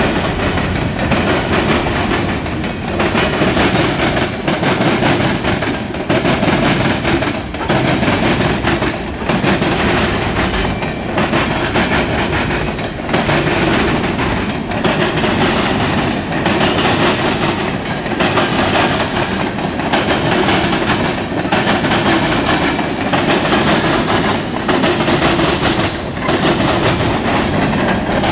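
Covered hopper cars of a CSX mixed freight train rolling past, steel wheels rumbling on the rails. A regular clickety-clack repeats about every second and a half.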